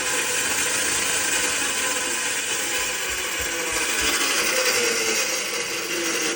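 Island range hood blower running loud, a steady whirring roar with a mechanical rattle; one tone in it sags slightly past the middle. The noise comes from a loose part lodged sideways in the fan.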